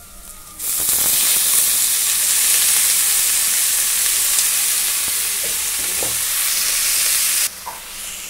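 Shredded cabbage, carrot and capsicum hitting hot oil in a kadai and sizzling loudly. The sizzle starts suddenly just after half a second in and drops off abruptly near the end.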